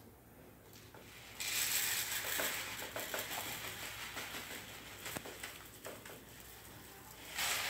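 Dry white rice pouring from a plastic bag into a measuring cup: a steady hissing patter of grains that starts about a second and a half in and thins out after a few seconds, with a brief louder rustle near the end.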